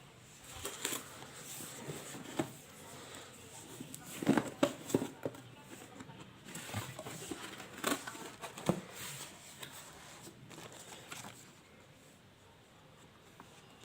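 Power supply packaging being handled and opened: crinkling plastic and cardboard, with a string of knocks and clicks, busiest in the middle.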